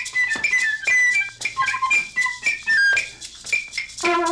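A toy whistle blown in short high toots that jump between a few different pitches, amid sharp rattling clicks from a shaker. Just before the end, a low wavering horn note starts and keeps going.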